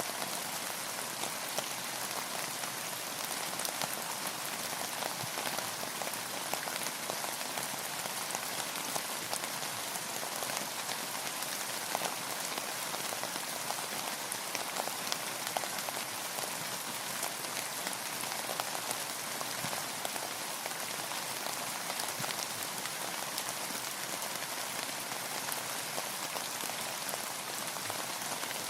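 Steady rain falling: a dense, even hiss made of many small drop ticks.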